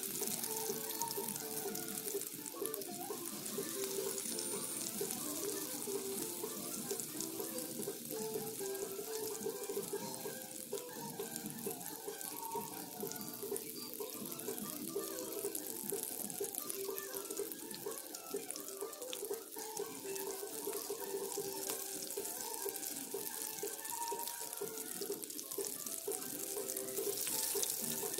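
Breaded shrimp deep-frying in hot oil: a steady crackling sizzle, with background music playing over it.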